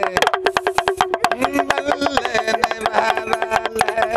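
A damru, the small two-headed pellet drum of a bear handler, twisted in a fast, even rattle of strokes.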